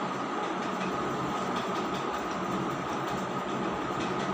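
Steady machine drone with a constant hum, even and unchanging throughout.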